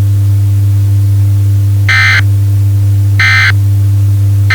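Emergency Alert System end-of-message data bursts: two short bursts of digital data tones about a second apart, with a third starting at the very end. They sound over a loud, steady low hum.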